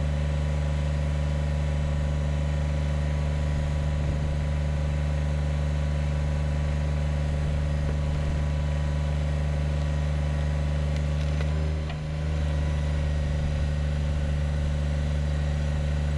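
Kubota BX25D compact tractor's three-cylinder diesel engine running steadily at a high, even speed, with a brief dip about twelve seconds in.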